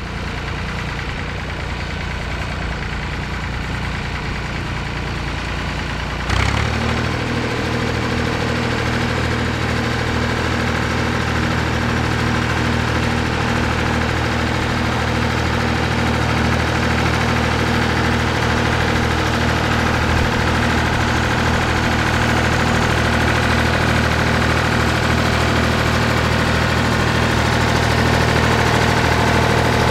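Massey Ferguson 135 tractor engine running steadily under load as it pulls a plough. About six seconds in the sound jumps louder and settles into a firmer, even beat, then slowly grows louder as the tractor comes closer.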